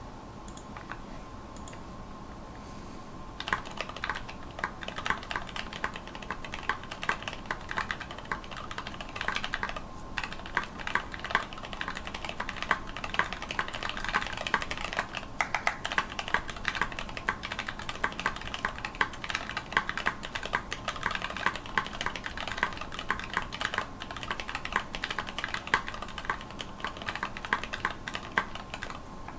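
Typing on a mechanical keyboard with lubed linear switches (Cherry retooled black housings with Greetech black stems and tops, 72 g springs), a fast, continuous run of key clacks. The typing starts about three and a half seconds in, with brief lulls near ten and fifteen seconds.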